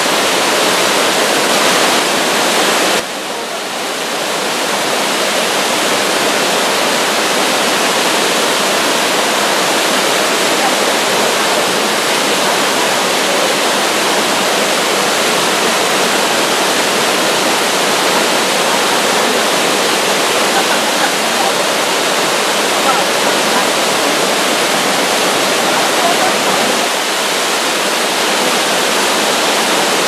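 Waterfall rushing steadily over rocks, a full-flowing cascade of white water. The level drops suddenly about three seconds in and builds back over the next few seconds.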